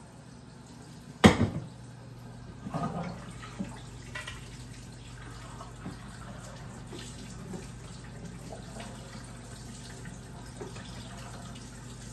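Kitchen tap running cold water over drained macaroni at the sink. A loud clank about a second in as a pot is set down, then a few lighter clatters.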